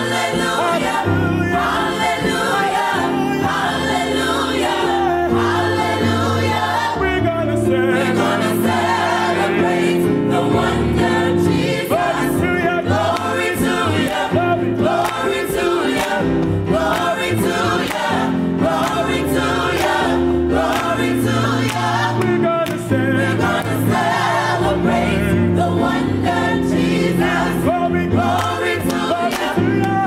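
A gospel choir singing a holiday song in full harmony, with a low bass line stepping under the voices and regular percussion hits.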